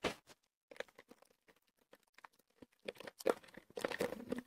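Faint crinkling and crunching clicks from eating small animal-shaped candies, starting about three seconds in after a near-silent stretch.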